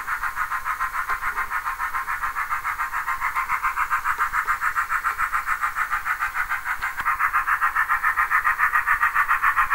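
Sound-fitted Bachmann OO gauge Thomas the Tank Engine model running, its onboard speaker playing a fast, even steam-locomotive chuff of several beats a second. The chuffing grows a little louder in the second half.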